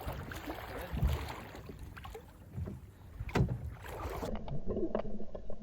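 Wind on the microphone and water against a small hunting boat on open water, with a few knocks, the sharpest about three and a half seconds in.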